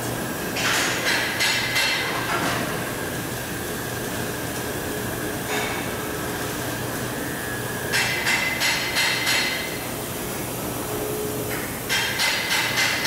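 Oxy-fuel gas torch flame hissing steadily while brazing a copper tube onto a steel pipe. Four bursts of rapid metal knocks break in, each of three to five strikes at about three a second.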